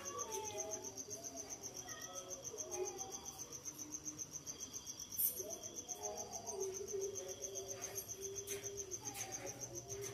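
Night insects, crickets, trilling steadily in a high, rapid, even pulse. Faint wavering calls sound lower down, and a brief click comes about halfway through.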